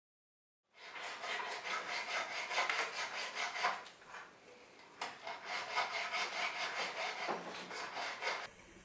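Quick, rhythmic rasping strokes of a hand tool on metal at a jeweler's bench, about four strokes a second, in two runs with a short break about four seconds in.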